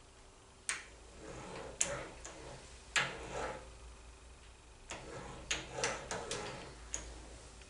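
Sharp metallic clicks and brief scrapes as a metal lathe's slides and handwheels are worked by hand to touch the cutting tool on to the work. There are about eight clicks at uneven intervals, the loudest about three seconds in.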